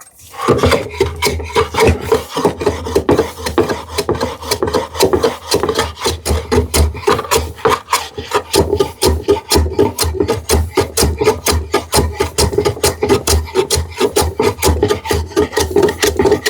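Rapid, even back-and-forth strokes of a hand tool cutting sapele wood, about five strokes a second, keeping up steadily throughout.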